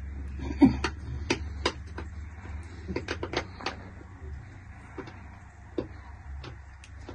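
A scattered series of short, light clicks and knocks, about a dozen, the sharpest about half a second in and a quick cluster around three seconds in, over a low steady hum.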